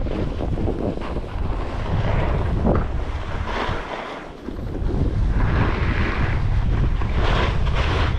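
Wind buffeting a camera microphone carried by a skier going downhill: a low rumble with a rushing hiss that swells and fades, dipping briefly about four seconds in.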